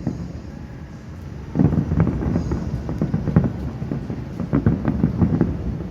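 Fireworks going off: a quieter first second and a half, then a rapid string of bangs and crackles with a low rumble under them.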